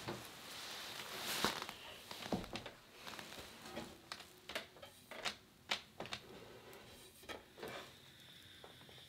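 Irregular small clicks, taps and rustling over a steady hiss of room tone.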